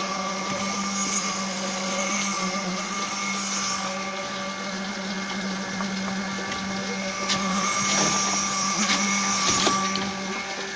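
Diesel-engine concrete pump running steadily, with a steady whine over the machine noise. A few sharp knocks come near the end.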